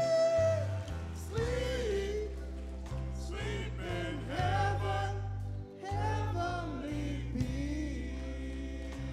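Singing with instrumental accompaniment. A long held note ends about half a second in, then a wavering, gliding melodic line runs over sustained low bass notes.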